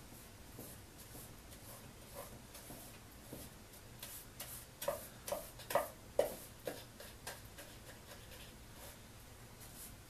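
Paintbrush working over a wooden birdhouse: light brushing and scratching strokes, then about halfway through a quick run of short taps, around seven in two and a half seconds, as the brush dabs at the wood.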